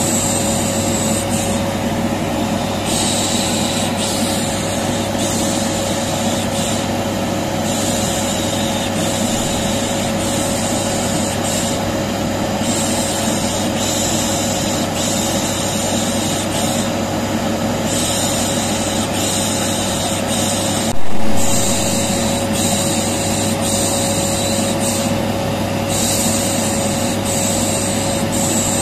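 Vacuum cleaner running steadily, with a humming motor tone, overlaid by a repeated 'shh' shushing hiss that comes and goes about every one to two seconds. One brief loud click about two-thirds of the way through.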